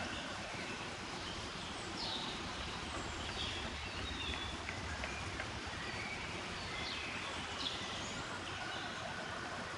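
Steady outdoor background noise, with a few short, high bird chirps scattered through it.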